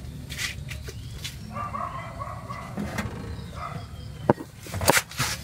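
A plastic tube being worked into the transmission filler hole, with a few sharp clicks and knocks near the end over a low steady hum. A dog barks in the background.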